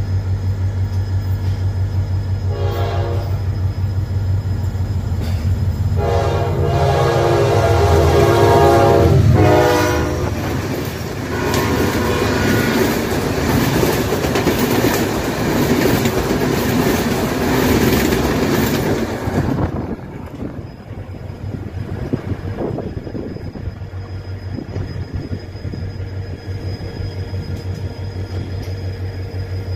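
Diesel locomotive horn blowing a short blast, then a long blast and a quick short one, as an oncoming passenger train meets the train. Its coaches then rush and clatter past close alongside and cut off abruptly when the last car clears, leaving the quieter rumble of the moving train.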